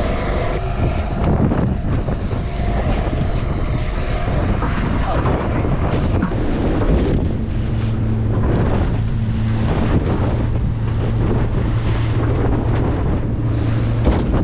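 Wind buffeting the microphone and water rushing and splashing as a small open boat runs through choppy sea, with a steady low engine hum underneath that comes up clearly in the second half.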